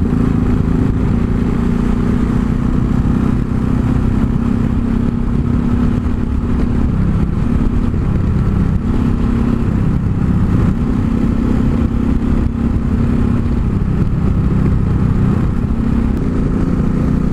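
Yamaha XT 660 Z Ténéré's single-cylinder engine running at a steady, easy cruise, heard from the rider's seat with a constant rush of riding noise underneath.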